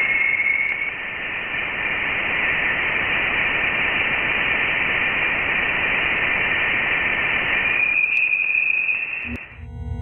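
Sonified space recording presented as the sound of Charon, Pluto's largest moon: a steady radio-static hiss with a faint whistling tone in it, a chilling, ghostly sound. It cuts off near the end, where a ringing tone begins.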